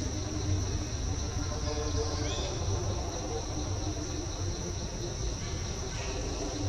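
Steady high-pitched drone of forest insects, with a low rumble underneath and a brief faint chirp about two seconds in.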